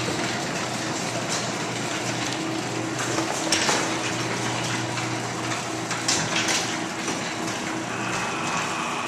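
LiftMaster 3280 belt-drive garage door opener lowering the door: a steady motor hum under the rumble of the door running down its track, with a few clacks along the way.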